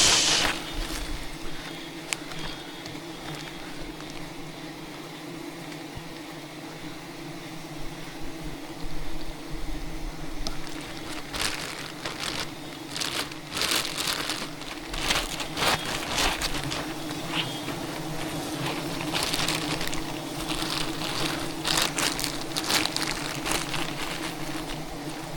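Swarm of giant honeybees buzzing as a steady, even hum. From about a third of the way in, irregular crackling and rustling bursts break over it.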